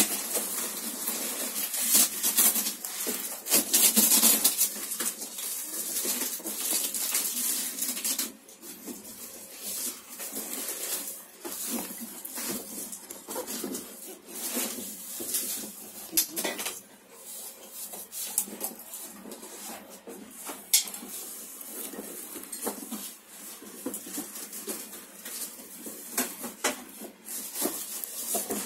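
A cellophane-wrapped perfume box handled in gloved hands: plastic wrap crinkling and rustling, with scattered clicks and taps. It is busiest and loudest for the first eight seconds or so.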